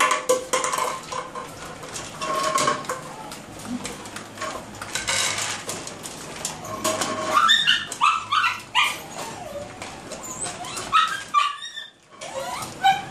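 Small dogs in wire cages yipping and whining in short, high calls, in a cluster about halfway through and again near the end, over scattered clicks and knocks.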